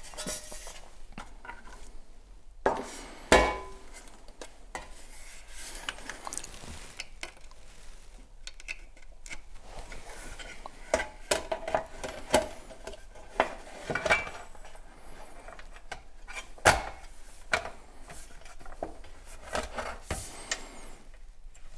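Clinks, clicks and knocks of a network switch's casing and replacement power-supply board being handled and fitted together, with two louder knocks, one about three seconds in and one near seventeen seconds.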